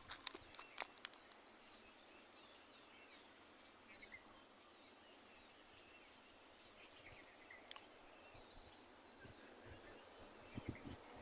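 Faint insect chirping: a short, high, pulsed chirp repeating about once a second.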